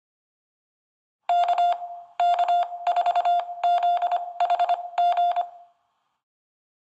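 Morse code beeping: a single steady-pitched electronic tone keyed on and off in six quick groups of short and long beeps.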